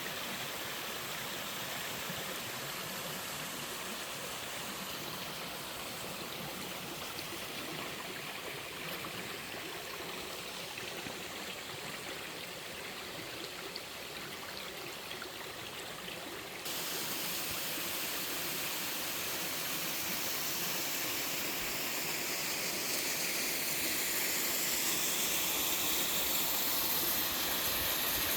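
Mountain stream water rushing and splashing over rocks, a steady rush. About two-thirds of the way through it cuts abruptly to a louder, brighter rush of falling water.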